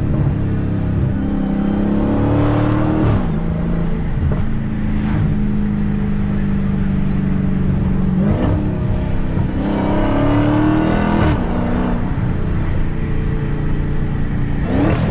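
Supercharged 6.2-litre Hemi V8 of a stock Dodge Challenger SRT Hellcat, driven hard. Its pitch rises and drops several times through the gears, with sharp exhaust pops where the revs turn.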